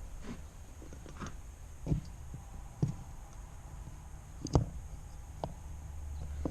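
A few scattered knocks and clicks, the sharpest about four and a half seconds in, over a steady low rumble, as pool return fitting parts are handled.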